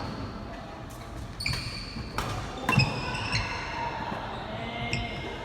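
Sharp ball and racket impacts of a rally, a few hits a little over half a second apart, each leaving a brief high ringing tone, in a large echoing hall.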